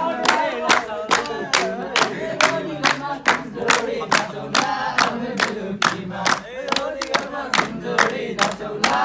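Voices singing a Nepali dohori folk song to steady hand-clapping, about three claps a second.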